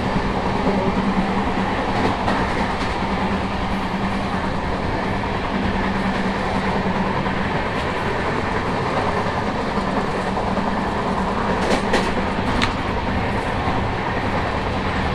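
Moving passenger train heard from inside a coach's vestibule: steady running rumble and rattle, with a steady hum through the first half and a few sharp clacks toward the end.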